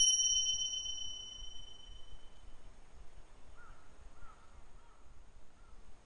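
A bright single chime rings out at the start and fades away over about two and a half seconds, a sound effect struck as the caption appears. Later, four faint short bird calls come in quick succession.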